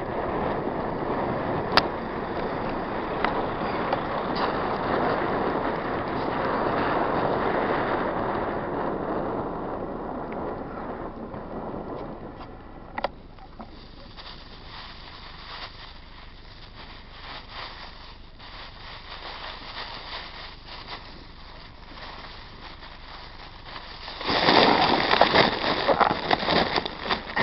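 Cars passing on a paved road, heard over wind noise on the camera of a moving mountain bike. The sound grows quieter about halfway, with scattered small rattles and clicks, then turns loud and rough near the end.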